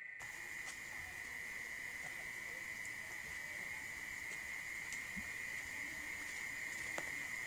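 Outdoor insect chorus: crickets or cicadas chirring as one steady, unbroken high drone, with a few faint clicks.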